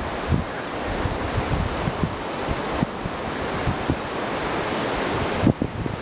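Steady rush of surf and wind on an open beach, with gusts buffeting the microphone in irregular low thumps, the strongest near the end.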